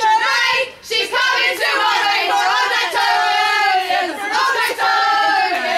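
A small group of football supporters singing a team chant, several voices together close to the microphone, loud, with a brief break about a second in.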